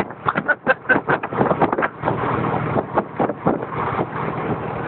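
Semi truck's engine running steadily at road speed, heard from inside the cab along with road and wind noise. A quick run of sharp clicks and knocks comes in the first two seconds.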